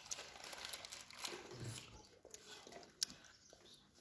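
Soft sipping of tea from a small glass in the first second, then a brief low murmur and a single light click.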